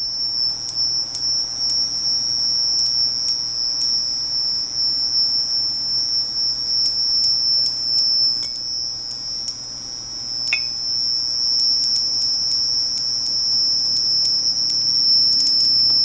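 Homemade single-transistor flyback driver running a CRT at about 5,000 to 6,000 volts, giving a steady high-pitched squeal that the builder can't get to stop. Faint clicks sound now and then over the squeal.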